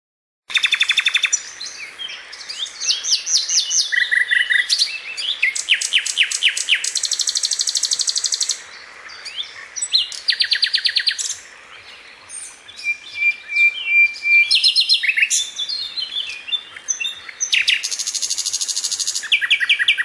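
Common nightingale singing in phrases of rapid repeated notes and trills, with short pauses between them and one held pure whistle a little after halfway.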